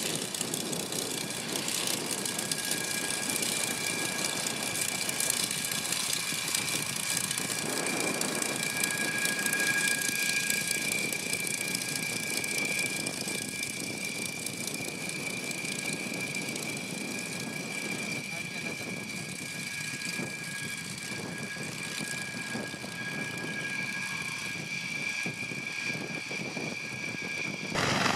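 De Havilland Mosquito's twin piston engines running at low power as it taxis, a steady engine noise with a constant high whine over it. Near the end it cuts abruptly to the louder rotor noise of a Caracal helicopter.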